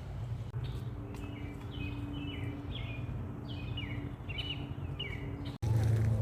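Birds chirping in a run of short, quick, falling chirps over a steady low rumble. Near the end the sound cuts off abruptly to a louder low hum.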